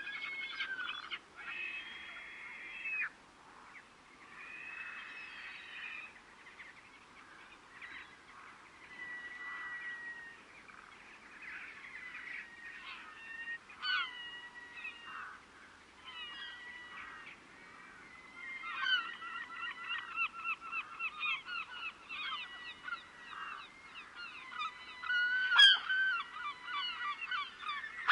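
Several seagulls calling: drawn-out wailing calls at first, then a fast series of short repeated calls that grows louder. A single sharp click near the end is the loudest moment.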